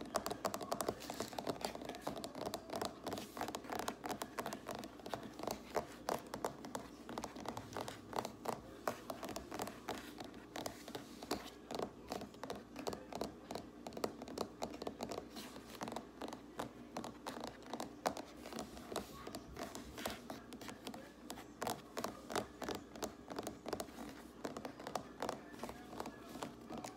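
Fingers tapping fast on a hard surface close to the microphone: quick, sharp clicks several times a second in uneven runs, with no pause.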